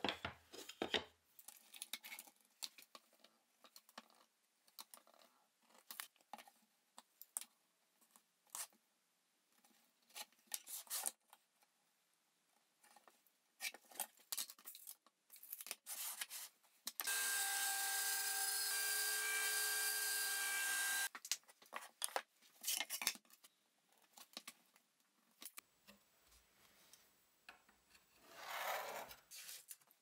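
Wooden boards handled on a wooden workbench: scattered light knocks, taps and rubs as they are picked up, slid and set down. About halfway through, a small power tool runs steadily for about four seconds, cutting in and out abruptly.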